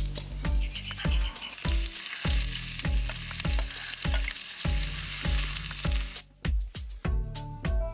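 Oil sizzling in a frying pan as chopped onions fry and are stirred with a wooden spoon; the sizzle stops suddenly about six seconds in. Background music with a steady beat plays under it.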